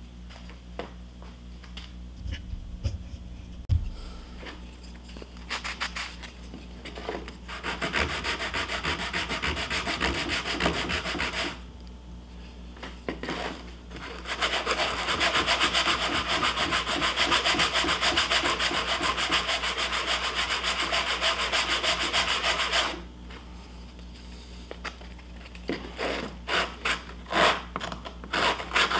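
A small wooden piece rubbed by hand back and forth on a sanding sponge in quick rasping strokes, smoothing away the chatter marks left by the jigsaw. The sanding comes in bursts: a short one about eight seconds in, a long run of rapid strokes through the middle, and a few slower strokes near the end, with light knocks of wood on the bench in the pauses.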